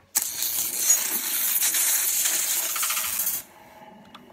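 Intro logo sound effect: a loud, bright hissing shimmer with a fine metallic rattle. It starts abruptly and cuts off after about three seconds, leaving only faint steady tones.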